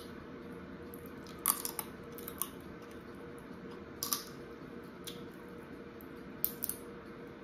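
Crab-leg shells cracking and snapping as they are picked apart by hand, with chewing of the crab meat: half a dozen sharp, scattered cracks over a faint steady hum.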